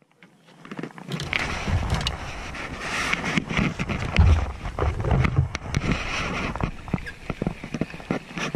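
Wind buffeting the camera microphone, starting about a second in, mixed with knocks and clicks as a spinning rod and reel are lifted and handled in the boat.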